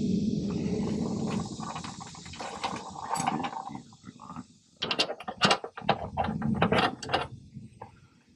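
Hand tools working on metal brake-line bracket fittings: a dense mechanical rattle for the first few seconds, then a quick run of sharp clicks and knocks from about five seconds in.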